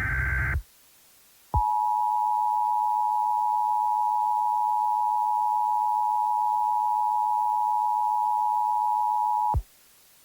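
Emergency Alert System signal. The tail of a screechy SAME digital header burst ends half a second in. After a short gap, the EAS two-tone attention signal sounds steadily for about eight seconds and cuts off sharply; it marks an incoming emergency alert.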